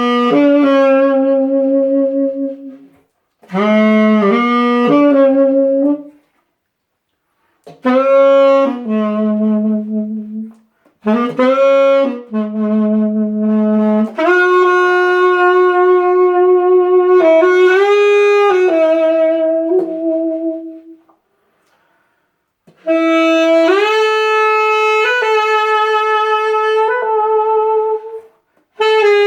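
Solo saxophone played through a 3D-printed mouthpiece set up for a bright pop sound. It plays unaccompanied melodic phrases of held and moving notes, broken by short pauses for breath.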